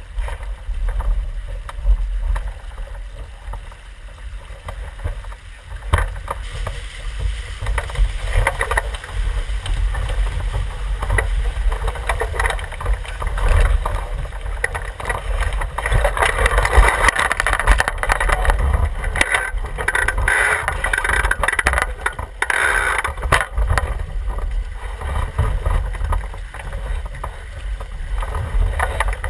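Javelin skiff sailing fast downwind: water rushing and spraying along the hull, with a steady low wind rumble on the boat-mounted camera's microphone. The rush of water grows louder from about seven seconds in and is loudest near the middle.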